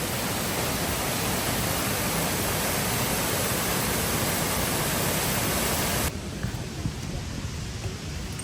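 Steady rush of falling water from a waterfall, an even hiss across all pitches. About six seconds in it drops sharply to a quieter background with a few faint knocks.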